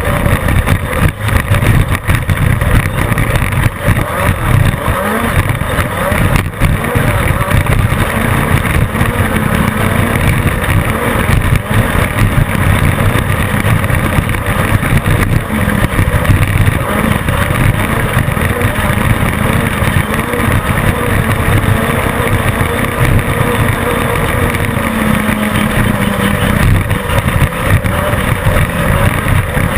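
Class 10 off-road desert race car driven on course: engine running continuously under load, its pitch drifting up and down, over a dense, steady rattle and rumble from the chassis and rough ground.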